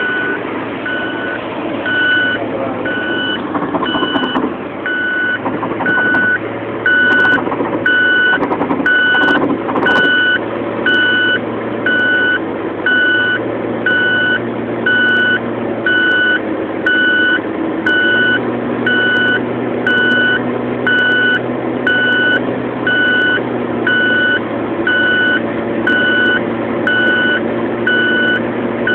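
Car's overspeed warning chime beeping evenly, a little over once a second, starting about two seconds in, over steady engine and road noise inside the cabin: the warning Gulf-market cars sound above 120 km/h, here at around 140 km/h.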